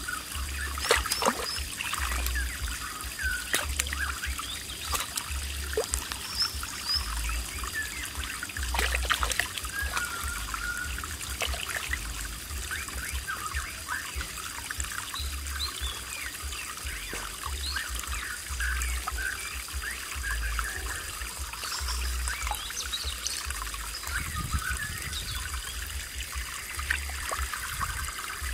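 Shallow stream water trickling over rock, with irregular small splashes and drips as hands rinse a fish in it; a few sharper splashes come in the first several seconds.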